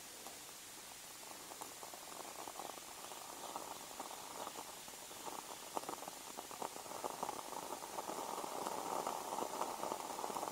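Small wood fire crackling with many faint pops as the kindling in the top of a split-log Swedish torch catches, growing steadily louder.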